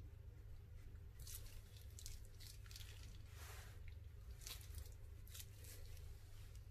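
Faint, soft squishes and plastic crinkles from a piping bag of slime being squeezed while its tip is drawn through wet slime in a glass dish, a stroke every half second or so, over a low steady hum.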